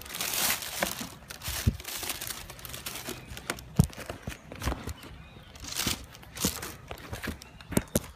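Tissue paper rustling and crinkling as a sneaker is handled in its shoebox, in irregular swells, with a few sharp knocks.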